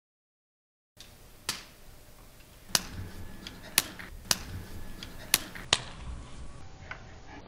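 A handgun being handled: after about a second of dead silence, a string of sharp mechanical clicks, about five loud ones and a few fainter, spaced unevenly.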